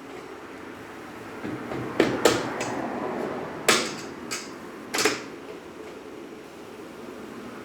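Licence-plate light and its locking clip being fitted by hand into a truck bumper: about six sharp clicks and knocks of the small parts between two and five seconds in.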